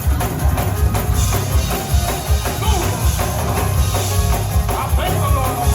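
Live gospel band music with a steady, driving drum and bass beat.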